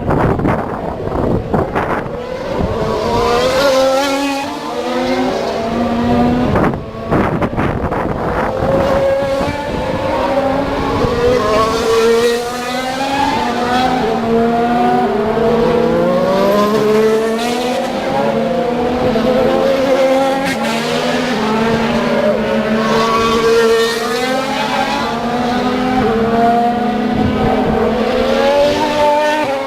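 Race car engines running on a circuit, several at once, their pitch repeatedly rising and falling as they accelerate and shift gears.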